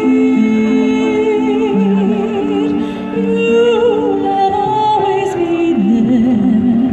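A woman singing a slow ballad with vibrato into a microphone, amplified through a small portable speaker, over an accompaniment of held notes that change in steps.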